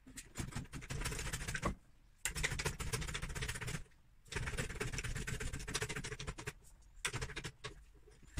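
Hydraulic trolley jack being pumped to lift the front of a car: three runs of rapid clicking and scraping, each about a second and a half with short pauses between, then fainter scattered clicks near the end.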